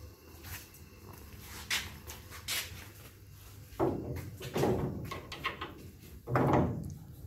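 Steel steering-linkage parts and tools clinking and knocking as they are handled and fitted up to the car's front suspension: a few light clicks, then three heavier clunks in the second half.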